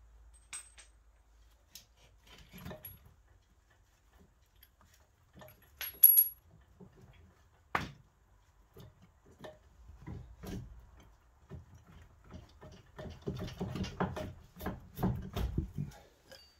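Hand tools clinking and knocking against the rusted front hub and suspension parts as a stuck part is worked loose. There are scattered clicks, a bright metallic ping about six seconds in and a sharp knock about two seconds later, then a quick run of knocks and clanks near the end.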